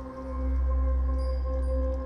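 Background music: steady held tones over a deep, swelling bass.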